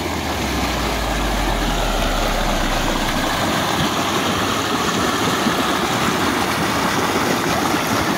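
Muddy water rushing steadily through a breach blown in a beaver dam, the backed-up pond draining down a channel. A low rumble sits under it for the first few seconds.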